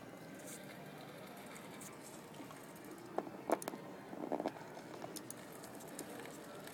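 Faint soundtrack of an outdoor iPhone video playing through laptop speakers, with a few sharp clicks a little past the middle and a short burst of sound just after.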